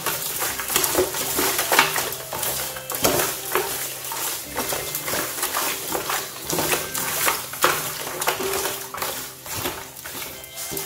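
Hands kneading and rubbing skinned frogs with salt in a large aluminium basin, cleaning the meat: wet rubbing with irregular scrapes and knocks of the meat and hands against the metal.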